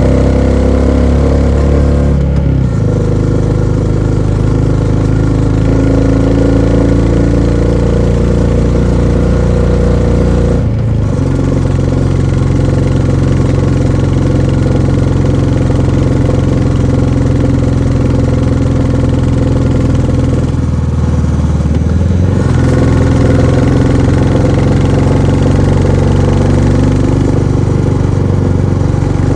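A 2024 Royal Enfield Classic 350's single-cylinder engine thumps steadily through its stock exhaust while the bike is ridden. The note dips briefly three times and settles at a new pitch each time.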